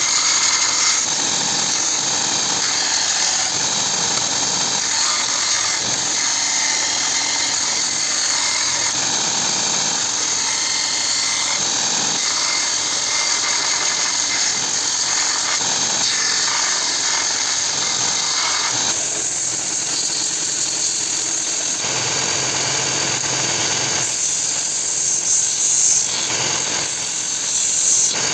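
Electric power tool running steadily on the saw-blade steel. The sound changes abruptly a few times in the second half.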